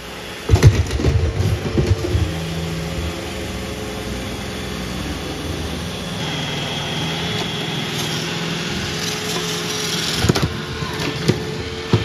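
iRobot Roomba i7+ robot vacuum running on a wooden floor, its motor and brushes humming steadily. A higher whine joins about halfway through. A cluster of knocks comes near the start and a couple more near the end.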